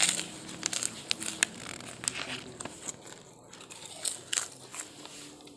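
Close-up crunching and chewing of kerupuk crackers being bitten, a run of sharp crisp cracks, thickest in the first two seconds and again about four seconds in.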